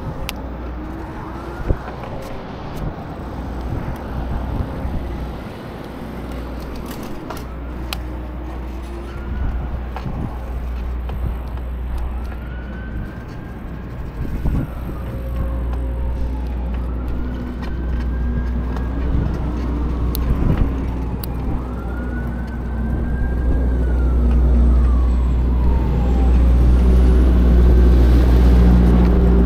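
An emergency vehicle's siren wailing in slow rising-and-falling sweeps, each lasting a few seconds, mostly in the second half. Under it is a steady low wind rumble on the camera microphone, which has no wind cover, and it grows louder near the end.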